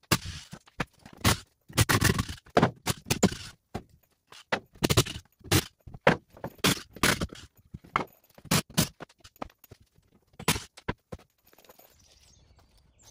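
Irregular wooden knocks and scrapes as a lumber rafter is knocked loose from a framed wall and handled down, with sharp knocks coming in clusters and a couple of longer scrapes in the first few seconds. It quiets in the last second or so.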